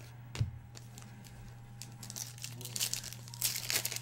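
Foil trading-card pack wrapper crinkling and tearing as a pack is opened, a dense run of quick crackles from about two seconds in, after a single sharp click near the start.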